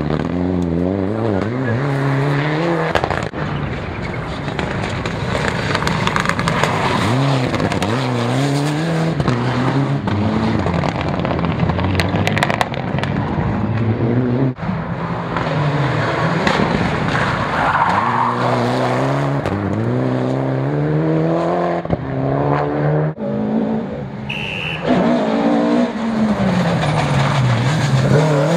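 Rally cars taking a bend one after another, engines revving hard with the note climbing and dropping at each gear change and lift, and tyres skidding on loose gravel.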